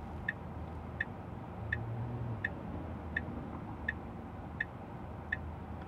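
Tesla Model 3's left turn-signal indicator ticking at an even pace, about three ticks every two seconds, over a low steady hum in the cabin.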